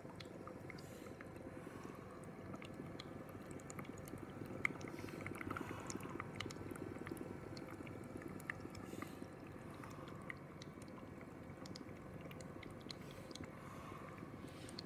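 KCareU portable oxygen concentrator running at 2 L/min: a steady low hum with light scattered clicks throughout.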